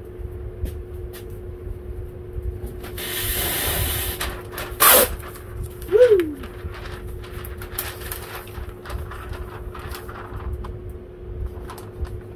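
Masking tape being handled on a car bumper: a hissing stretch as tape pulls off the roll, a sharp loud rip about five seconds in, and a short squeak, with light clicks and a steady hum behind.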